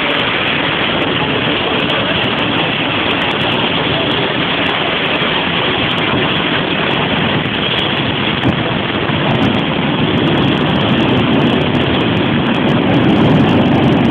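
Jet engine of the Fire Force 3 jet car running, a loud steady rushing roar that grows louder over the last couple of seconds.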